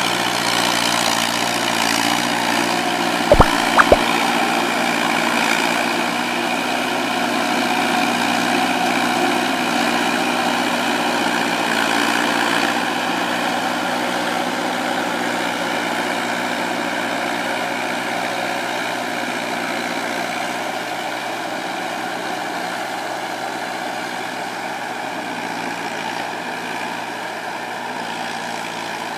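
Kubota tractor's diesel engine running steadily as it drives a rotary tiller through a wet rice paddy, growing gradually fainter from about halfway through as the tractor moves away. Two sharp clicks half a second apart cut in a few seconds in and are the loudest thing heard.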